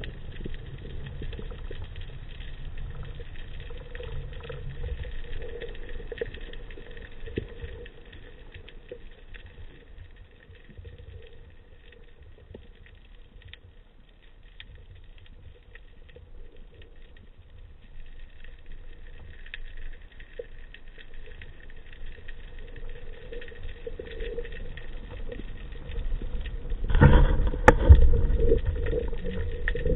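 Muffled underwater noise heard through a camera's waterproof housing: a low rumble of water moving past the housing as the diver swims, with scattered faint clicks. About 27 seconds in comes a louder burst of rumbling and knocks.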